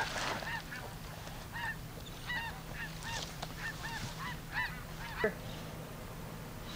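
A flock of geese honking, many short calls repeating and overlapping for about five seconds, with one short sharp sound about five seconds in.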